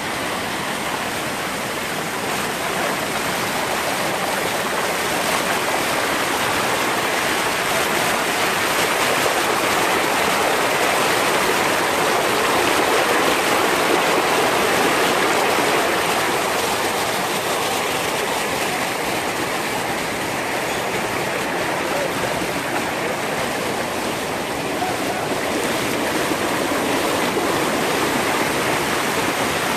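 Stream water rushing and splashing over rocks in small cascades, a steady rush that swells a little louder around the middle.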